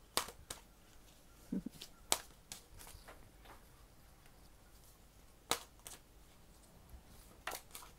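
Deck of oracle cards being shuffled by hand: a few sharp slaps of cards snapping against the deck, spaced a couple of seconds apart, with softer ticks between.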